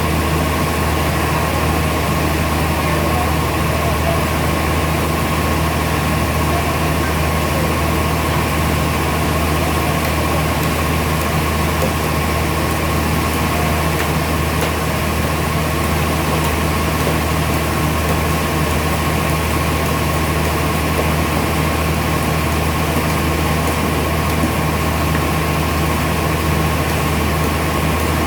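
Sawmill machinery running steadily: a constant deep hum with a steady high whine over it, unchanging throughout.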